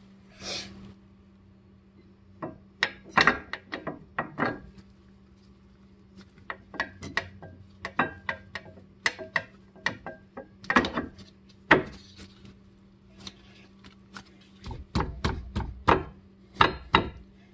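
Brake pads being worked into a six-piston Brembo caliper: irregular clicks and knocks of the pads against the caliper, bunched in clusters, over a faint steady hum.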